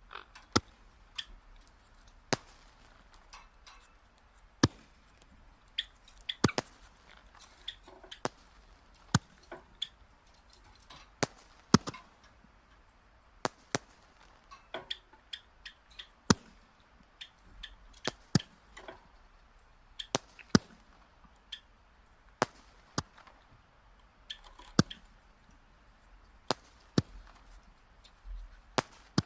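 Burning firewood crackling, with irregular sharp pops, some much louder than others, about one or two a second.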